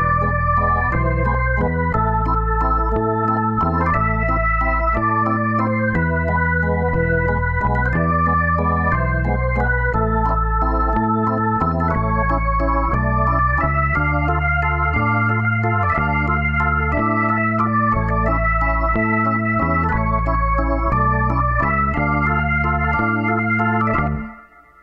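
Background music: an electronic organ-like keyboard tune over a stepping bass line, fading out near the end.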